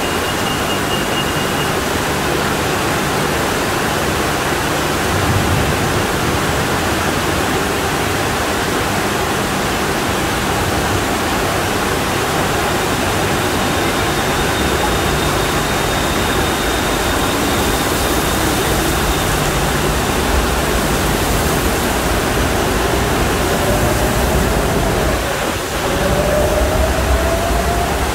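Torrential rain pouring down with water gushing in a dense, steady rush.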